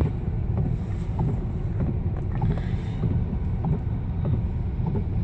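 Steady low rumble inside a car's cabin as it drives slowly along a wet, flooding road in heavy rain, with faint scattered ticks.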